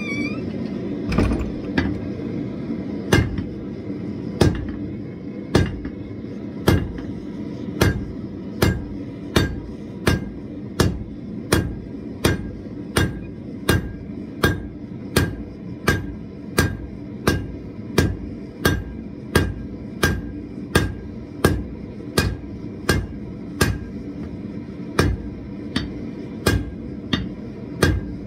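Hand hammer striking a red-hot steel bar on an anvil: a few spaced blows at first, then a steady rhythm of about three sharp strikes every two seconds. Beneath it runs the steady rush of the lit forge.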